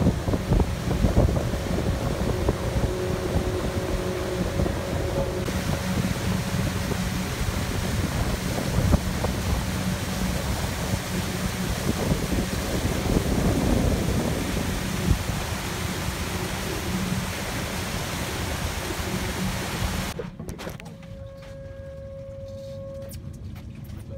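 Pontoon boat underway: its motor runs steadily under heavy wind buffeting on the microphone. About twenty seconds in this cuts off suddenly, leaving a much quieter steady hum.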